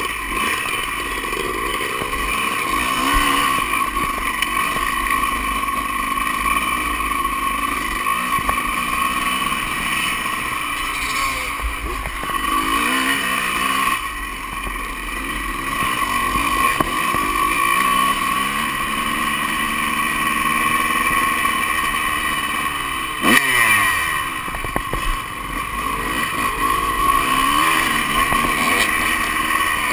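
Honda CR250 two-stroke dirt bike engine heard from the rider's own bike, revving up and falling back again and again as it is ridden over the dirt track's jumps and turns. A single sharp knock comes a little over three quarters of the way through.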